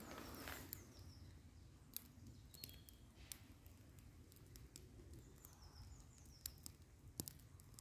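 Near silence: faint woodland ambience with a few soft scattered clicks and faint high bird chirps.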